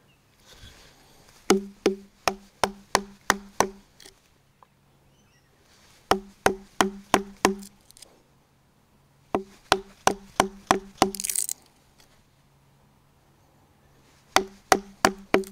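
Wooden mallet striking a wood chisel to chop out a mortise in a hardwood log post, in four runs of quick, evenly spaced knocks, each with a short ringing tone.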